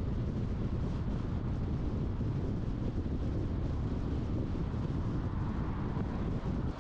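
A car being driven: steady road and engine noise, a low rumble with no changes.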